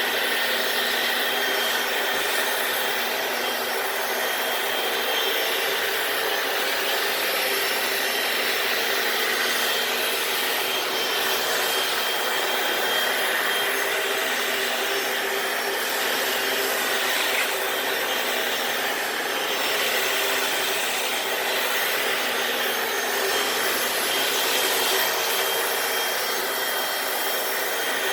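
Hoover FloorMate wet floor cleaner running steadily as it scrubs and vacuums a concrete garage floor: an even motor and suction drone with a few faint steady whining tones over the rough scrubbing noise.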